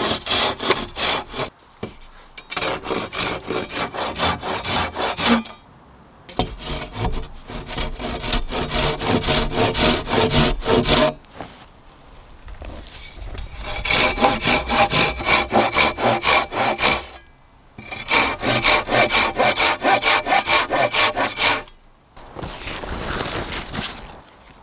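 Hand saw cutting through wood in several bouts of quick, rhythmic back-and-forth strokes, with short pauses between bouts; the last bout near the end is quieter.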